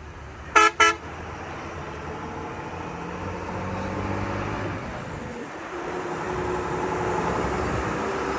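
Two short horn toots from a truck just under a second in. Then the truck's diesel engine pulls and rises in pitch, drops off briefly about five seconds in, and climbs again.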